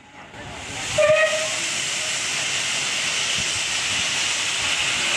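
Steam hissing steadily from the open cylinder drain cocks of LMS 'Jinty' 0-6-0T tank engine No. 47324 as it starts its train, the hiss building over the first second. A steam whistle gives one short toot about a second in.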